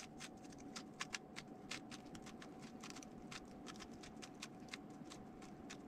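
3x3 Rubik's cube being turned quickly by hand: a fast, irregular run of faint plastic clicks as the layers snap round, over a faint steady hum.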